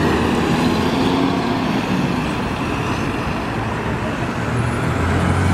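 City bus passing close by and pulling away, its engine running over general street traffic noise.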